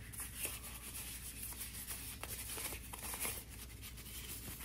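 Clear plastic zip-lock bag rustling and crinkling as it is handled and a small wrapped part is slid out of it: a faint run of small crackles.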